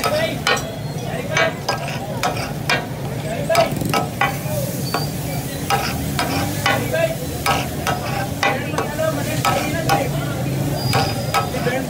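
Chicken pieces sizzling in oil on a large flat tawa griddle, while two metal spatulas clink and scrape against it about twice a second.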